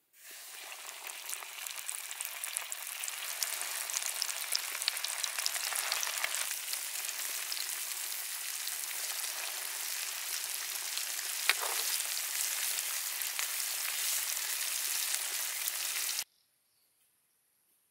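Flour-coated fish steaks deep-frying in hot oil in a large wok: a dense sizzling crackle full of small pops, starting as the fish go into the oil, with one sharper pop partway through. The sound cuts off suddenly near the end.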